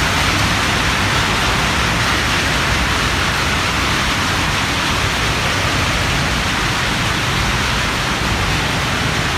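Bhajiya fritters sizzling as they deep-fry in hot oil: a loud, steady hiss.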